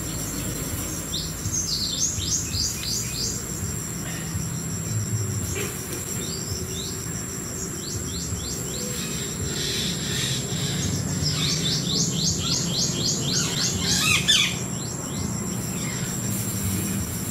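A songbird calling in bouts of quick, downward-sweeping chirps, the longest bout near the end, over the steady high drone of insects and a low steady hum.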